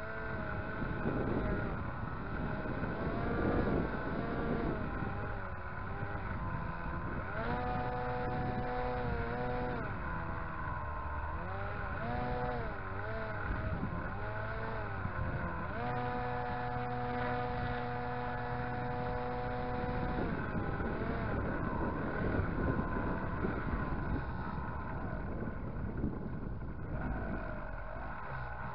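Electric motor and pusher propeller of a foam RC jet model in flight, heard from the onboard camera with a rush of airflow underneath. The motor's whine rises and falls with the throttle and holds steady for a few seconds in the middle.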